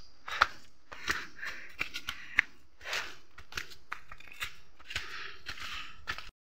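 Footsteps through leafy undergrowth: irregular rustling and crunching of leaves and stems, with sharp clicks mixed in. The sound cuts off suddenly near the end.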